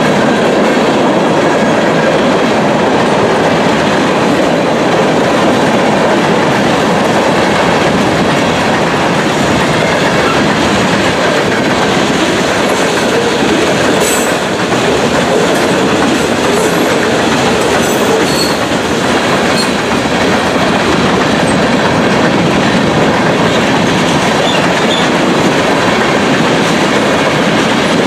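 Freight cars of a passing train (covered hoppers and tank cars) rolling by close up: a loud, steady rumble and clatter of steel wheels on the rails.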